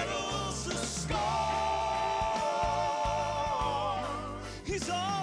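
Male southern gospel quartet singing with live band accompaniment. About a second in they hold one long note for roughly three seconds, then move on.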